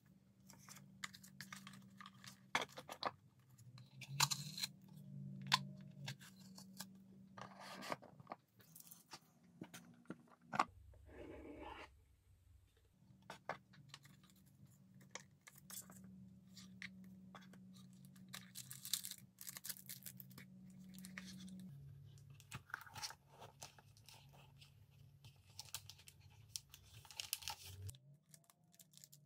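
Paper and cardboard packaging being handled: papers rustling and tearing, with many light taps and knocks as boxes and booklets are opened and set down. A low steady hum runs underneath.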